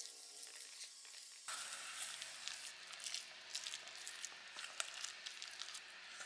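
A spatula stirring and folding thick chocolate cookie dough in a stainless steel bowl: a sticky, crackly mixing noise with many small clicks, getting louder about one and a half seconds in.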